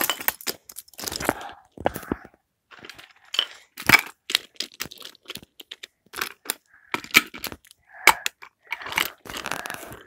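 Irregular clicks, taps and crackles close to the microphone: wooden Brio toy trains and track pieces clattering as they are pushed and handled.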